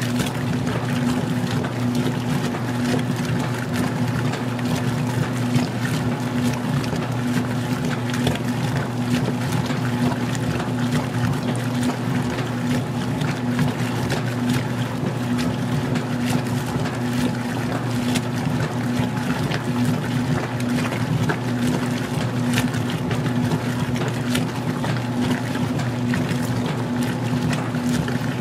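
Magic Chef 20-pound washer agitating in its wash phase: a steady motor hum with water churning in the tub.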